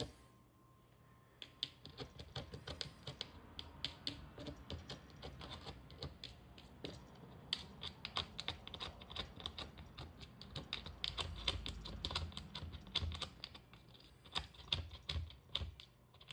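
Cat scratching in wood-pellet cat litter in a plastic litter box, the pellets clicking and rattling in quick, irregular strokes that start about a second and a half in.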